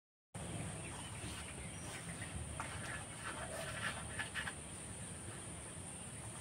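Faint scratchy rustling of fingers rubbing oil into flour in a steel bowl, with a few small clicks, busiest around the middle, over a low steady outdoor background.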